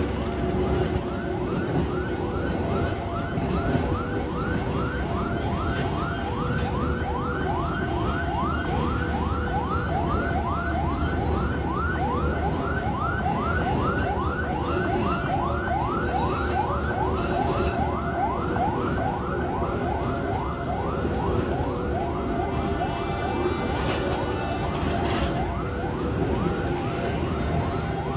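Electronic warning siren in a rapid yelp, about three sweeps a second, starting about a second in, over a steady low rumble.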